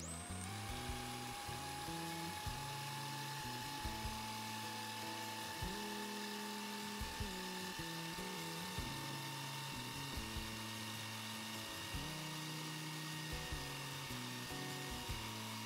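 Small electric food processor motor grinding dried tarhana crumbs into fine powder: a high, steady whine that spins up at the start and then creeps slowly higher in pitch.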